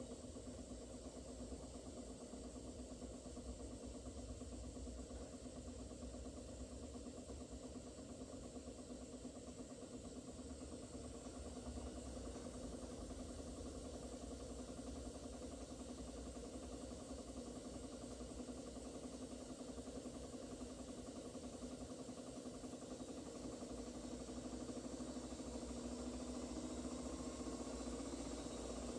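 LG Direct Drive front-loading washing machine running with a steady mechanical hum and low rumble, slowly growing louder and rising a little in pitch near the end.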